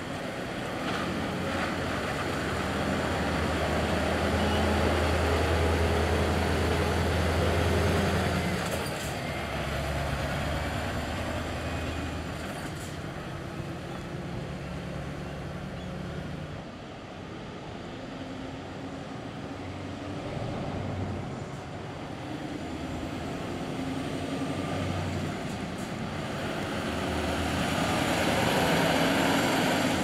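Heavy diesel semi-trucks with tipper trailers full of crushed concrete driving past under load, engines running low and steady with tyre and road noise. The first is loudest in the first third; another truck comes up loudly near the end.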